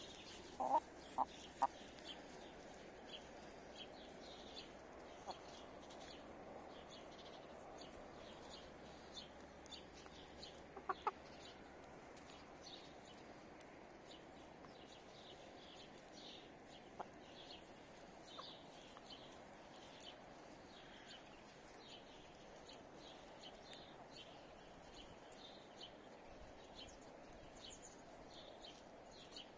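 Hens clucking softly a few times, in a short cluster about a second in and again about eleven seconds in, over faint scattered high ticks.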